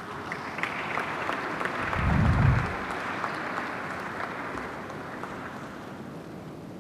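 Audience applauding, swelling at first and then slowly dying away, with a brief low thud about two seconds in.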